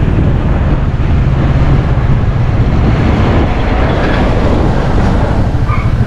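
Wind buffeting the microphone of a moving motorbike, a loud, steady rumble with the bike's engine and tyres beneath it.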